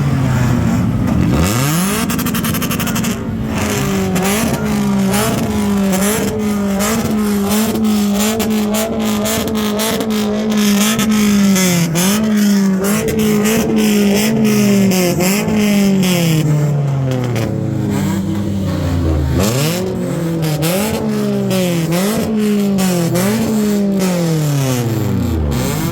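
Car engine revved again and again, its pitch climbing and dropping every second or so and falling away low twice near the end, with exhaust pops and bangs crackling throughout.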